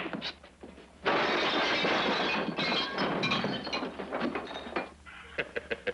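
Slapstick crash as a man falls and wooden chairs topple over: a sudden loud crash about a second in, then a couple of seconds of clattering and breaking with short ringing clinks, ending in a few lighter knocks.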